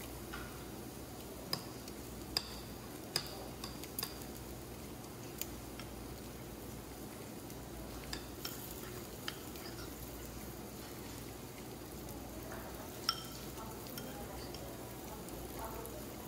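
Metal spoon stirring and scraping rice in a stone bowl, with a few sharp clinks against the bowl, most of them in the first few seconds and one more near the end, over a steady faint hiss.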